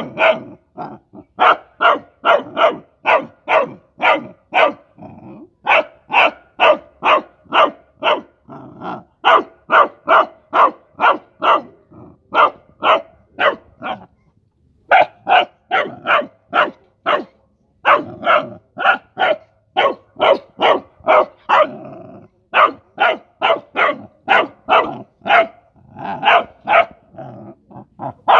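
Rottweiler puppy barking over and over at a mouse shut in a wire cage trap: short, fairly high barks about three a second, in runs broken by brief pauses.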